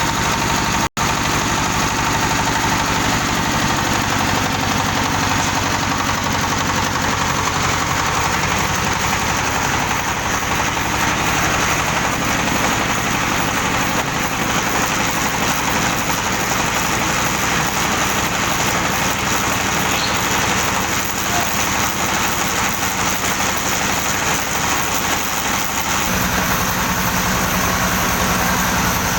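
Engine of a mobile concrete mixer machine running steadily. The sound drops out for an instant about a second in, and the low rumble grows fuller near the end.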